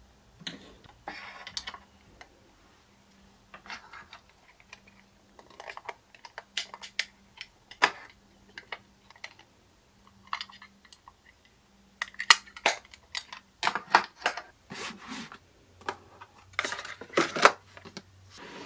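Small hard plastic toys handled by hand: a scattered series of light clicks and taps. Near the end, cardboard boxes slide and rustle under the hand.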